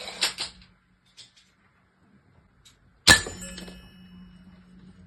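A few quick clinks, then about three seconds in a single sharp metallic hit that rings and dies away over about two seconds: an air-rifle pellet striking a 3 mm steel rolling tumbler target.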